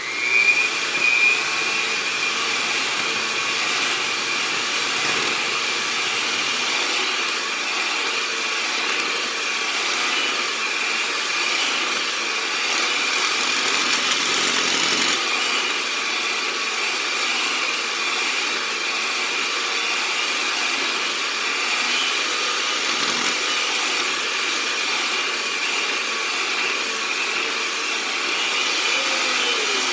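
Electric hand mixer running at a steady speed with a constant whine, its beaters working a crumbly flour, peanut butter and egg dough. It speeds up as it is switched on at the start and winds down as it is switched off at the end.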